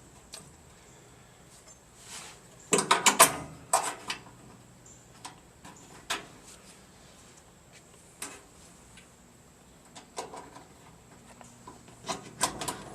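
Scattered metallic clicks and knocks of a hinge pin and spring being fitted into a basement bulkhead door's hinge, with a short cluster of knocks about three seconds in and a few more near the end.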